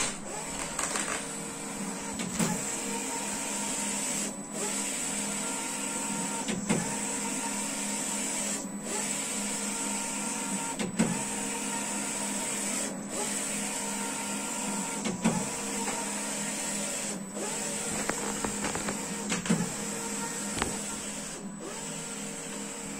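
Wide-format inkjet printer printing: the print-head carriage runs back and forth across the media with a steady motor whine, pausing briefly at each reversal about every two seconds.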